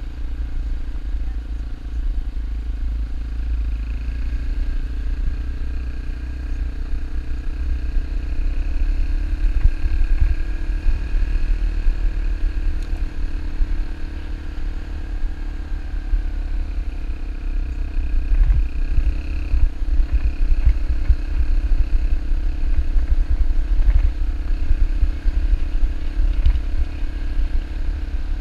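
Dirt bike engine running steadily at cruising speed, its pitch rising and easing a little, with heavy wind buffeting on the microphone.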